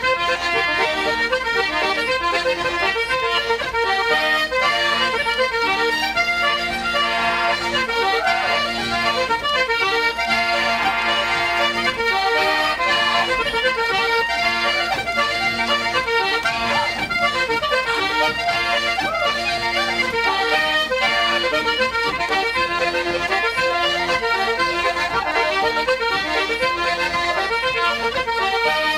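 Instrumental Irish traditional music: a lively, steady tune of quick notes with no singing.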